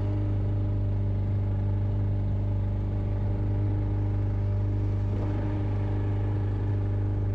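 Fishing boat's engine running steadily at a constant pitch.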